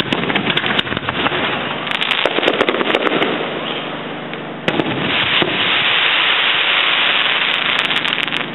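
Fireworks display going off: a rapid string of cracks and bangs, then a sudden loud burst about five seconds in followed by dense, continuous crackling.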